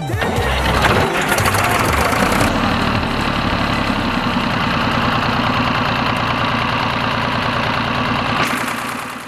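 Tractor engine starting and settling into a steady run. The sound fades out near the end.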